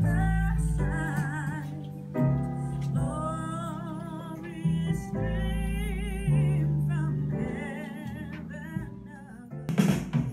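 Music: a female voice singing long notes with vibrato over sustained low accompaniment, changing near the end to a strummed guitar passage.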